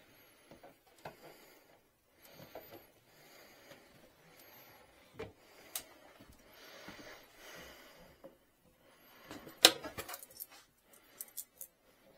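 Quiet rustling and rubbing of a perforated vinyl decal and its backing being handled and smoothed, then a quick run of sharp clicks and taps about ten seconds in.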